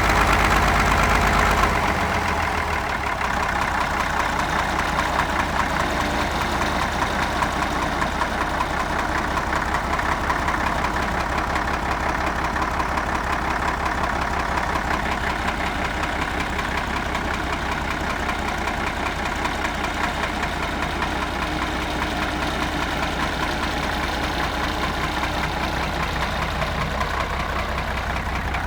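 Heavy engine running faster, then dropping to a steady idle about two seconds in, with an even, rapid beat.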